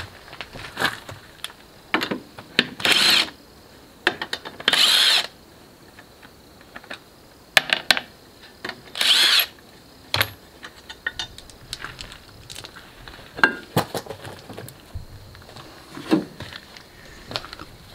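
Cordless power tool run in three short bursts, about half a second to a second each, as lug nuts come off a UTV wheel hub. Between the bursts there are scattered knocks and clatter from handling the wheel and tools.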